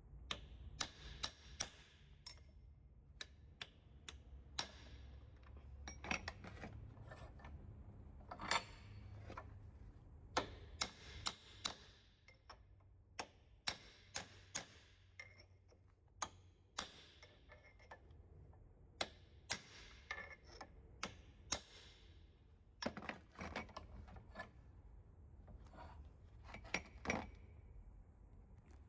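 Hand tools on a car's suspension parts: a string of irregular sharp clicks and taps, one to three a second, over a low steady hum.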